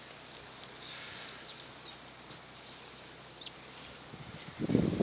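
Faint outdoor air with a few brief high bird chirps, then wind buffeting the microphone with a loud rush about four and a half seconds in.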